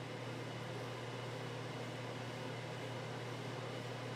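Steady low hum with a faint hiss: unchanging room tone, with no other sound.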